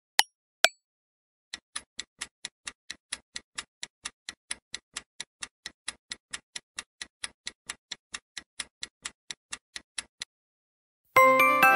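Countdown-timer clock-tick sound effect, an even ticking at about four ticks a second for roughly nine seconds. Two sharp clicks come just before it, and near the end a louder, bright chime rings out and fades as the time runs out.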